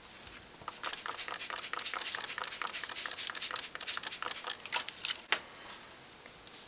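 Hand trigger spray bottle misting water onto potting soil in seedling cups: a quick run of short hissing squirts, dampening the soil before a planting hole is made. The squirts stop about five seconds in, with a sharp tap.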